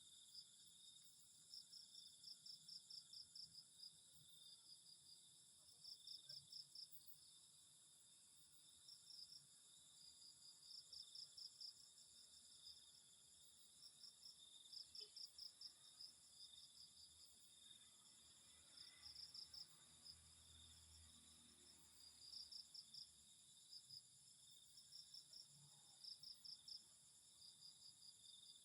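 Crickets chirping in rapid pulsed trills that come every second or two, over a steady high-pitched insect drone. A faint low rumble rises briefly about two-thirds of the way through.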